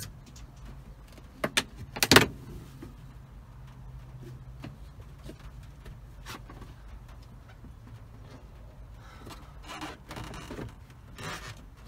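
A few sharp clicks and knocks from hand tools and loose interior trim being handled in a stripped car's rear, the loudest about two seconds in. Later come faint taps and rustling as the trim is worked again near the end.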